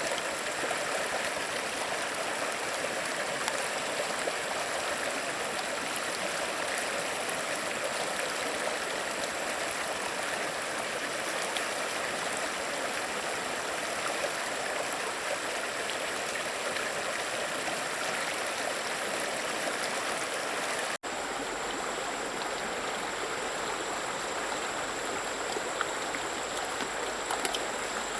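A stream flowing steadily, with an abrupt cut about three-quarters of the way through to a similar stretch of running water.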